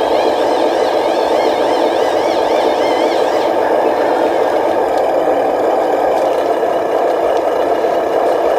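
Small electric motors and gearboxes of RC construction models running with a steady whir and rattle. A warbling high whine rides over it and stops about a third of the way in.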